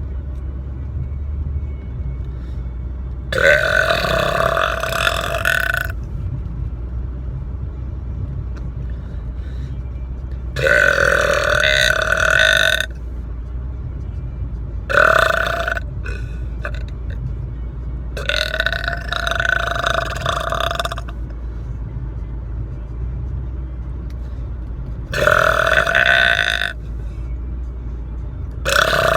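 A person burping loudly in a car, five long belches of two to three seconds each, every one held on a steady pitch, a few seconds apart, with another one starting right at the end. A steady low rumble of the car runs underneath.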